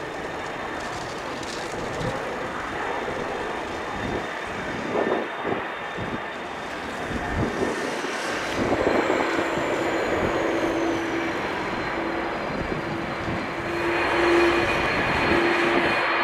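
Airbus A330-200's jet engines running, with a steady engine tone setting in about halfway through and holding. Wind buffets the microphone with low thumps.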